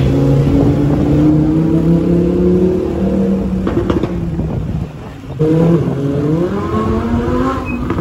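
A vehicle engine running loud with a steady drone that climbs slowly in pitch. It breaks off just before five seconds in, then rises in pitch again as it accelerates.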